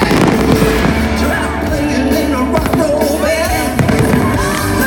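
Fireworks bursting over loud music: a big burst with a crackling tail right at the start, and a few more sharp bangs about two and a half and nearly four seconds in.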